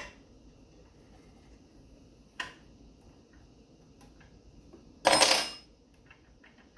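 Hardware being handled on the engine: a sharp click, another about two and a half seconds later, then a brief loud rasping clatter lasting about half a second, followed by a few faint ticks.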